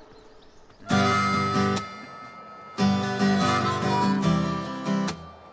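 Background music with strummed guitar chords, coming in sharply about a second in, breaking off for about a second, then returning and fading near the end.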